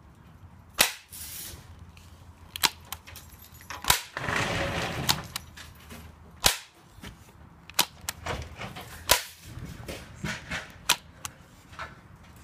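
Chainsaw chain brake handle being pulled back and pushed forward by hand, the mechanism snapping into place with sharp clicks: five loud snaps and several lighter ones. A scraping rustle sounds about four seconds in.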